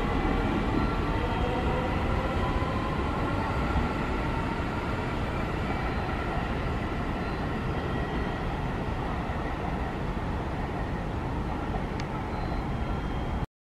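JR Central 315 series electric train pulling away from a station platform. Its traction motors whine upward in pitch at first, then the running noise fades slowly as it draws away. The sound cuts off suddenly near the end.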